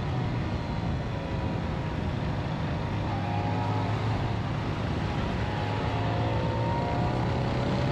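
Motorcycle engines running at a steady cruise while riding in a group, a low drone under a constant rush of wind and road noise, with a faint engine whine that rises slightly near the end.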